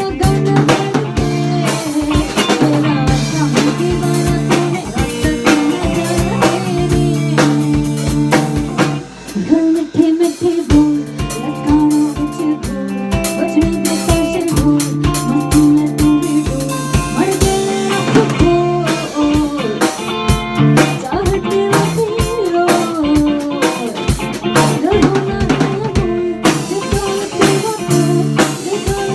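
A band playing an instrumental passage: drum kit with rimshots, snare and bass drum over sustained guitar and bass chords, with a short break about nine seconds in.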